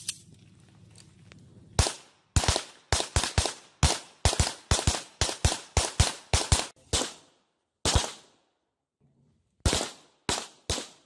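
Handguns fired in quick, uneven succession by more than one shooter: about twenty sharp shots, then a pause of over a second before a few more.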